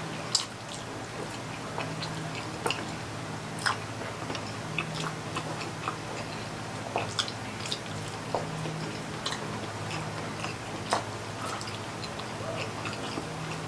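Close-up eating sounds of pork baby back ribs being chewed, with many small, irregular wet clicks and smacks. A steady low hum runs underneath.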